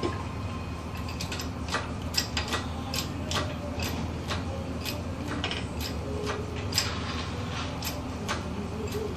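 Hand chain hoist clicking and its chain clinking at an irregular pace as it lifts an engine out of a pickup, over a steady low hum.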